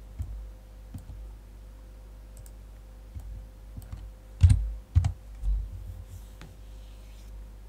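Computer mouse clicks and keyboard keystrokes, a few scattered clicks with two louder, deeper knocks about four and a half and five seconds in, over a low steady hum.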